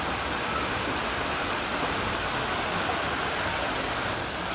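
Battered chicken pieces deep-frying in a large pan of hot oil: a steady, even sizzle.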